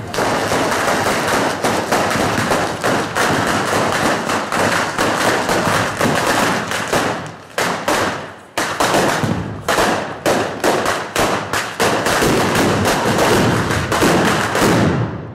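Firecrackers exploding on the ground in a rapid, continuous barrage of bangs and crackles. There is a brief lull a little past halfway, and the barrage dies away at the very end.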